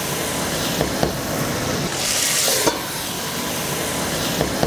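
Food frying and sizzling steadily in stainless steel pots, with stirring and a few light knocks of metal. The sizzle swells for a moment about two seconds in.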